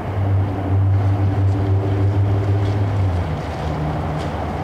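A steady low engine drone that shifts in pitch about three seconds in.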